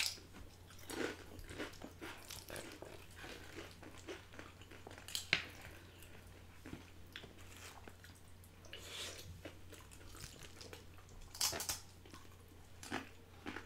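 Close-up crunching and chewing of crisp spicy corn snacks, Flamin' Hot Cheetos and Doritos Flamas, with separate sharp crunches every second or few.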